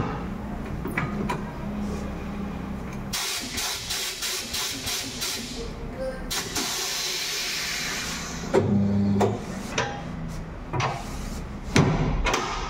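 Pneumatic tyre-changer machine working on a motorcycle wheel: a steady low hum at first, then a long hiss of compressed air through the middle, and near the end short bursts of its motor with metal knocks.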